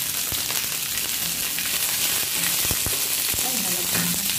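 Green beans and garlic sizzling steadily in sesame oil in a stainless steel frying pan, with a few light knocks of a spatula against the pan as they are stirred.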